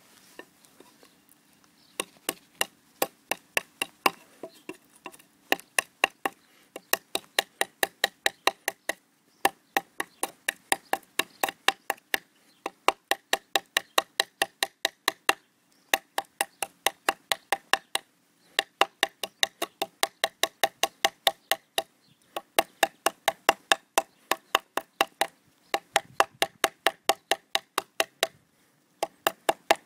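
Blade of a DPx HEST Folder pocket knife chopping into a thin wooden lath: sharp wooden knocks about three to four a second, in runs of a few seconds broken by short pauses, starting about two seconds in.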